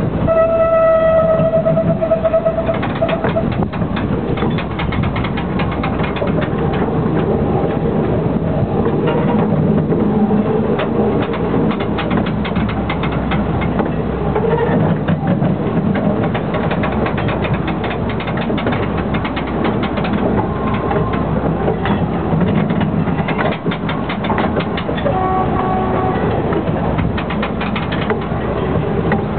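A narrow-gauge light railway train sounds one short whistle about half a second in. It then runs on with a steady rattle and clatter of wheels and cars.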